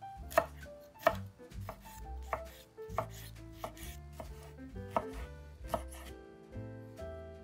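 Kitchen knife chopping food on a cutting board, about eight sharp strokes at an uneven pace, over background music.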